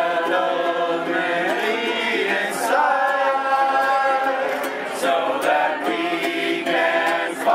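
A small group singing a Christmas carol together in unison, to a small strummed guitar.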